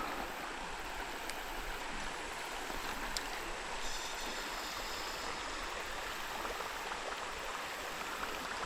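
Shallow creek water running steadily over a rocky bottom, with a couple of faint clicks.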